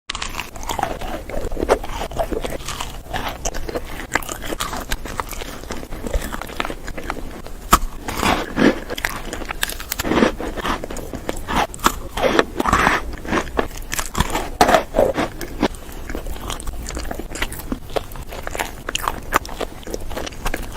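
Close-miked eating sounds: pink sweets being bitten and chewed, with irregular crunches and sticky clicks, louder bites coming in clusters through the middle.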